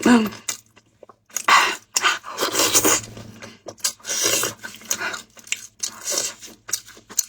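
A person chewing and crunching food close to the microphone, in irregular bursts.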